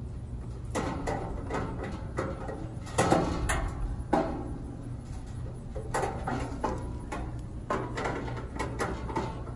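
Hands handling small plastic parts and a paper instruction sheet: irregular rustles, scrapes and clicks in short clusters, the loudest about three seconds in, over a steady low hum.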